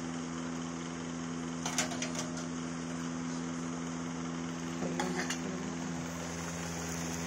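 Steady low mechanical hum, like an appliance motor running, with brief clicks about two seconds in and again about five seconds in.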